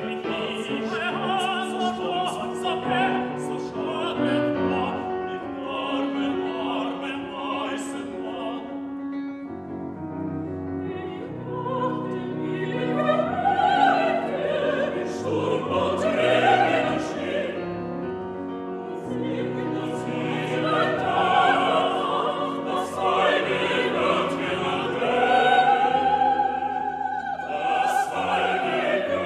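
Mixed choir of men's and women's voices singing a slow classical choral piece with piano. The phrases swell and glide up and down, and they grow fuller in the second half.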